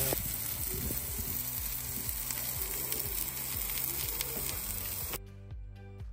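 Food sizzling as it fries, a steady hiss over background music with a steady beat. About five seconds in the sizzle cuts off suddenly and only the music remains.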